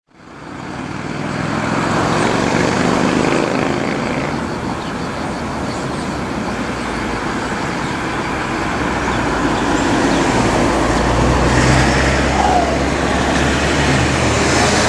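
Boeing 747-400's four Pratt & Whitney PW4000 turbofans on final approach: a steady low rumble and rush. It fades in over the first couple of seconds and grows gradually louder as the jet comes nearer.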